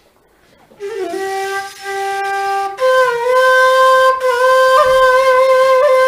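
A woodwind instrument begins about a second in and plays two long held notes, the second higher, starting about three seconds in.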